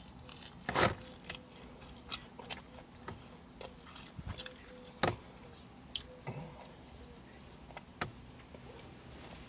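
A person eating: bites and chewing, with scattered sharp clicks and taps over a faint steady hum.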